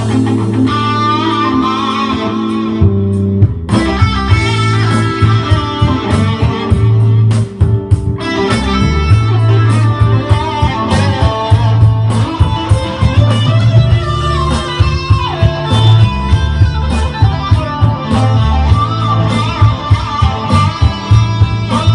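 Electric guitar lead played on a Fender American Elite Stratocaster through a HeadRush Pedalboard amp-and-effects modeller: a continuous melodic line with string bends, over a bass line and a steady drum beat.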